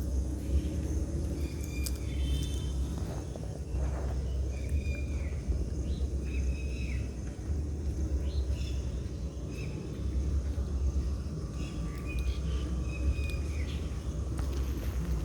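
Outdoor background: a steady low rumble with short, high bird-like chirps every second or two.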